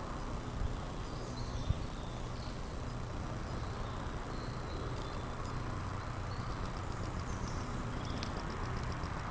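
Steady outdoor hiss with faint bird chirps scattered through it, a couple of faint clicks, and a constant thin high-pitched whine.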